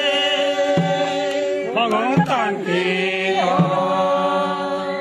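A group of men and women chanting together in unison, holding long drawn-out notes, with a quick change of syllables about two seconds in.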